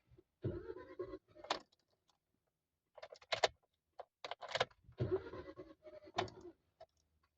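Car keys jangling and clicking in a Hyundai i20's ignition, then short stretches of whirring from about the middle on, as the engine is turned over but does not fire.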